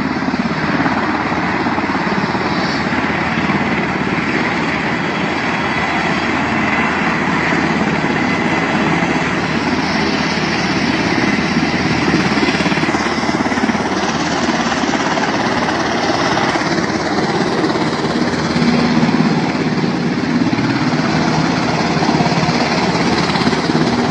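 UH-60 Black Hawk helicopter's rotors and turbine engines running close by, a steady loud rushing noise as it moves along the airfield in its own dust.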